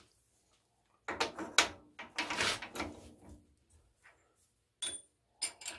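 Steel parts being handled on a milling machine vise: about two seconds of sliding and clattering metal, then two short metallic clinks near the end.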